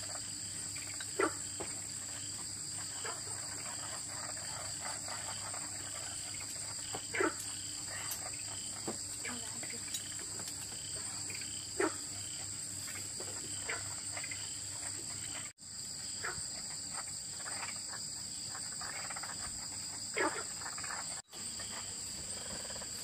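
Steady, high-pitched chorus of night insects, two continuous trills layered over each other. A few light knocks of chopsticks and bowls at the table come through now and then.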